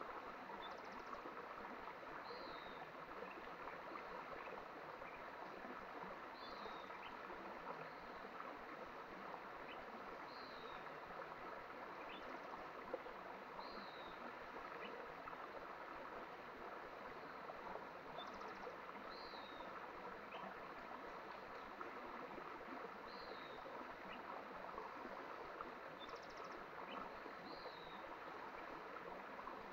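Mountain stream running with a steady rush of water. A bird repeats a short, high, falling call every few seconds, about seven times.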